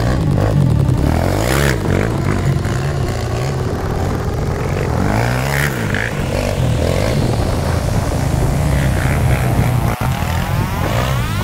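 Quad bike engine running under way, its revs rising and falling.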